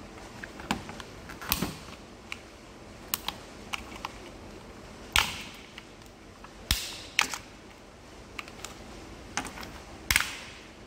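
A small screwdriver prying at the plastic housing of a Jeep TJ clock spring: irregular clicks and snaps of the plastic, with the sharpest snaps about five, six and a half, and ten seconds in.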